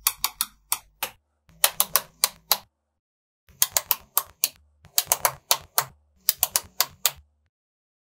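Small magnetic balls clicking sharply as blocks of them are snapped together end to end, in about five quick runs of clicks separated by silent gaps.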